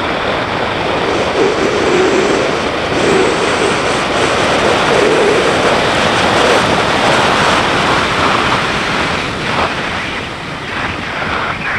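Wind rushing over the microphone of a BMW G650GS motorcycle riding at speed, a loud steady rush that swells in the middle and eases near the end, with the engine faint beneath it.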